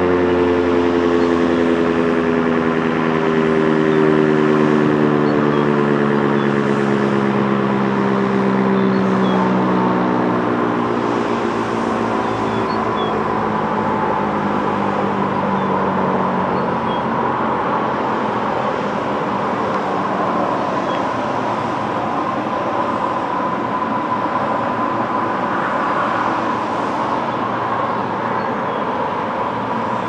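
ASC T-135 rotating tornado siren winding down after being switched off: its low tone slides steadily down in pitch and fades out over roughly the first fifteen seconds. Steady highway traffic noise runs underneath throughout.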